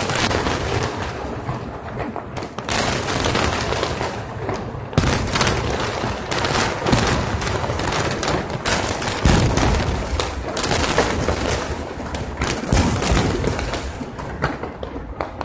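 Aerial fireworks shells bursting in a rapid, dense barrage: a continuous run of booms and crackles, with heavier bursts about five and about nine seconds in, easing off near the end.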